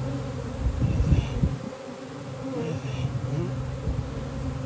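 A honey bee swarm buzzing as a steady hum, with single bees' pitch wavering up and down as they fly close past. A few low bumps about a second in.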